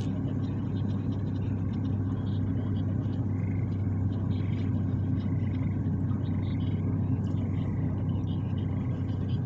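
A steady, continuous low mechanical hum, like an engine or motor running, with faint short high chirps scattered over it.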